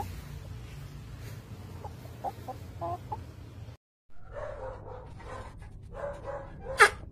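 Chickens clucking softly over a low background rumble. After a brief dropout about halfway, the clucking grows busier, with one loud, sharp squawk near the end.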